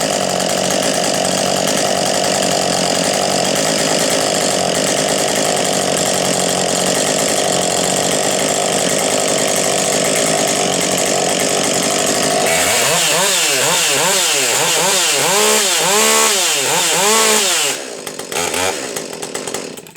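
Chainsaw engine running at steady high speed, then rising and falling in pitch over and over from about 12 seconds in as the throttle is worked, before dropping away near the end.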